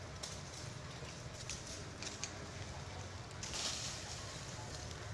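Dry fallen leaves crackling and rustling: scattered light crunches, with a longer, louder rustle about three and a half seconds in.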